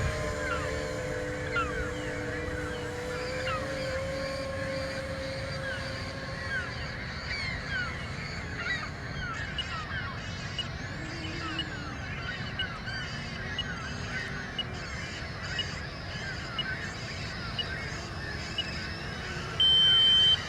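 A flock of birds calling continuously, many short falling calls overlapping. A faint steady tone fades out in the first few seconds, and near the end a loud steady beep lasts under a second.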